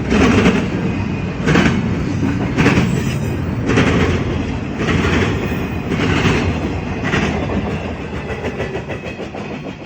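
Cars of a long CSX freight train rolling past, their wheels clacking over a rail joint in a steady rhythm about once a second, fading near the end.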